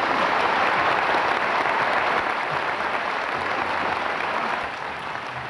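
Audience applause, loudest at first and slowly dying away toward the end.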